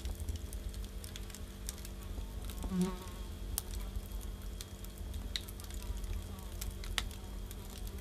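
Firewood burning in a brick Russian stove: irregular sharp crackles and pops over a low rumble of the flames, with the loudest snap about seven seconds in. A brief low buzz comes about three seconds in.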